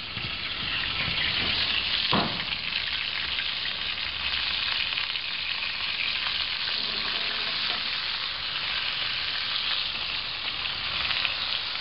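Fat and juices sizzling steadily in a very hot cast-iron skillet holding a freshly roasted whole chicken. A single sharp knock comes about two seconds in.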